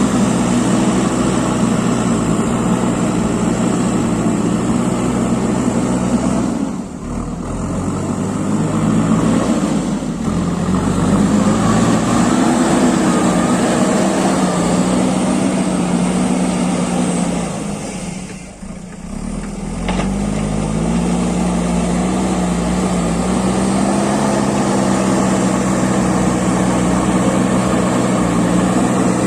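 JCB backhoe loader's diesel engine running under working load, its pitch shifting as the revs rise and fall. It drops off briefly twice, about seven seconds in and again a little past the middle, then comes back up.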